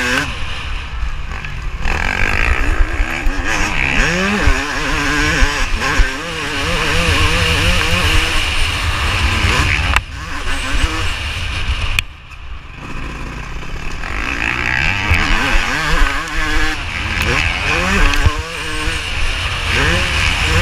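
Yamaha YZ250 two-stroke motocross engine being raced, revving up and down through the gears with the throttle chopped briefly several times, most deeply about twelve seconds in. Wind rumble on the microphone underneath.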